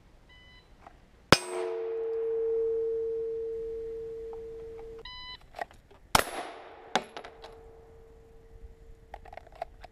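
A shot timer beeps, then a pistol shot hits a steel target, which rings with a long, steady ping that slowly fades. The same thing comes again: a longer timer beep about five seconds in, a shot about a second later, and the steel ringing again, with a smaller sharp click just after.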